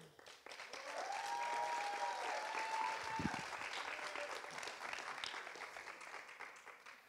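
Audience applauding, with a long whoop rising over the clapping about a second in; the applause dies away toward the end.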